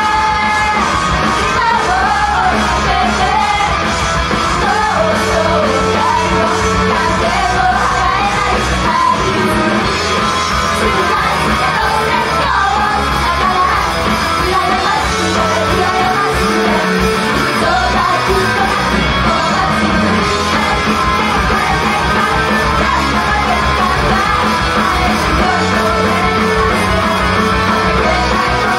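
Live performance of a punk-rock idol song: loud rock music with guitar under several young women singing into handheld microphones, at times shouting the lines.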